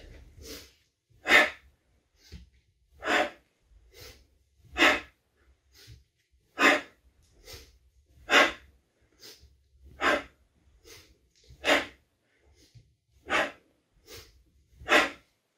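A man breathing hard in a steady rhythm while doing squats: a loud breath about every 1.7 seconds, nine in all, each followed by a fainter breath.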